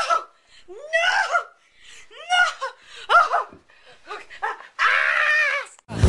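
A young child laughing in repeated short bursts, with a longer, held laugh near the end; music cuts in right at the end.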